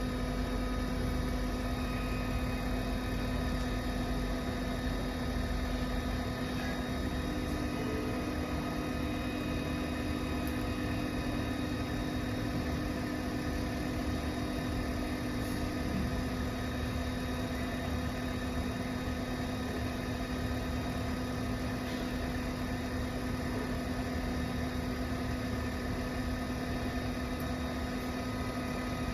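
LV-02 BGA rework station's hot-air blower and fans running steadily while it heats a CPU chip through a reflow temperature profile, a constant hum with a low steady tone. A faint second tone joins from about seven to sixteen seconds in.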